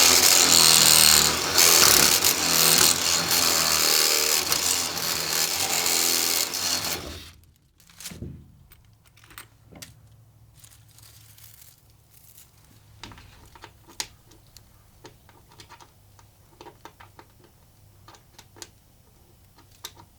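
Power drill running, its bit worked back and forth to widen a hole in a greenhouse frame so a bolt can slip in. It stops about seven seconds in and winds down, followed by faint scattered clicks.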